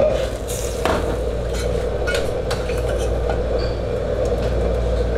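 Metal ladle stirring a wok of boiling lamb soup, clinking and scraping against the black steel wok a handful of times in the first few seconds, over a steady roar.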